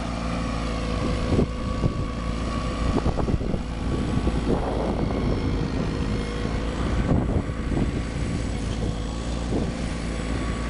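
Allis-Chalmers 720 garden tractor's engine running steadily under load as its rear-mounted tiller churns the soil, with irregular short knocks mixed in.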